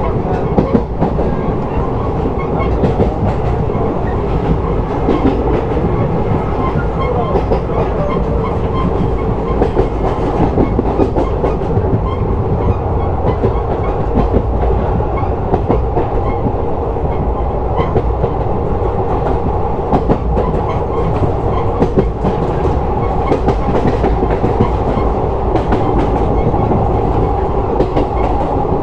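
A moving train heard from on board: a steady rumble of wheels on the rails, with scattered clicks and clacks from the track and the coach.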